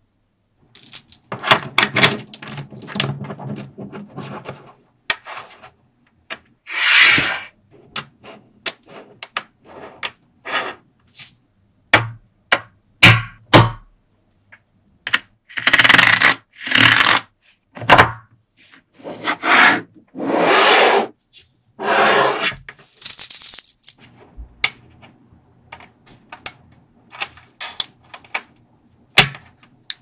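Small neodymium magnetic balls being handled by hand: sharp clicks and snaps as the balls strike and latch together, mixed with longer scraping rushes of about a second each as a plastic sheet or card slides against them on the table.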